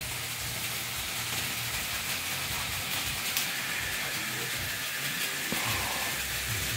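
Märklin H0 model trains running on floor-laid track: a steady whirr of small electric motors and wheels on the rails, with a single sharp click about three and a half seconds in. The low rumble grows stronger from about five and a half seconds in.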